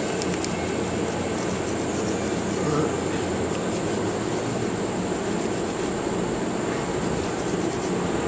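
Steady rushing background noise with faint scratching of a small nylon brush scrubbing the frame of a .22 revolver.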